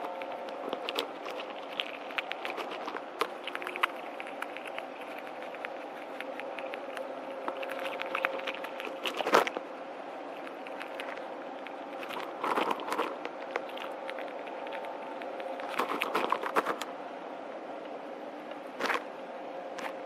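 Gray squirrel eating birdseed at a feeder: irregular small clicks and crackles of seeds being cracked and shuffled, with a few louder clusters of clicks. A faint steady hum runs underneath.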